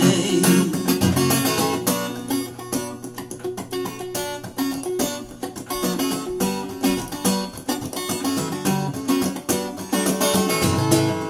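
Background music: a Spanish-style acoustic guitar piece with quick plucked and strummed notes.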